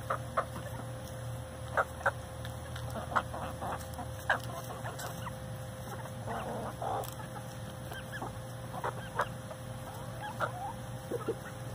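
A flock of hens clucking softly while feeding, with scattered short sharp taps and chirps as they peck at food in a bowl.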